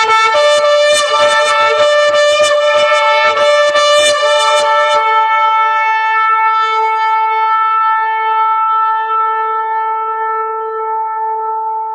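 A shofar (ram's-horn trumpet) blown in a quick run of short, rapid blasts for about five seconds, then one long held blast.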